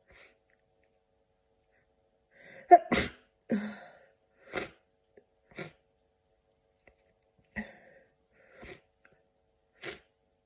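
A person with a cold sneezing: a breath builds into one loud, sharp sneeze about three seconds in, with a second right after. Shorter, quieter bursts follow about once a second.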